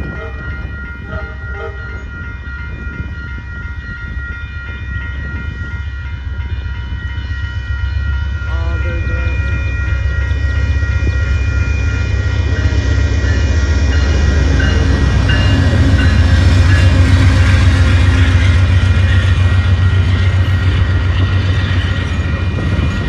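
Amtrak Texas Eagle passenger train approaching and passing with its horn sounding. The deep rumble of the train builds steadily and is loudest about two-thirds of the way through, then eases slightly near the end.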